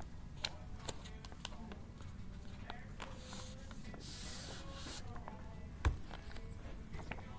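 Sheets of paper rustling, crackling and sliding as they are leafed through and pulled out of a folder, with a single thump about six seconds in.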